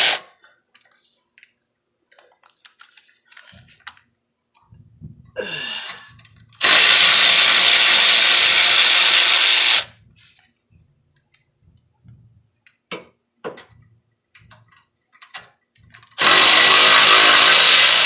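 Electric power tool running in two steady bursts of about three seconds each, with clicks of tool and hardware handling between them, while the car's rusty tailpipe bolts are worked on.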